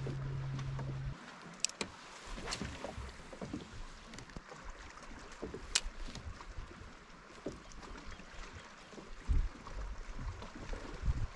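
Water lapping against a plastic kayak hull, with light clicks and knocks from handling the fishing rod and reel. A steady low hum cuts off about a second in, and there are a few low thumps against the hull near the end.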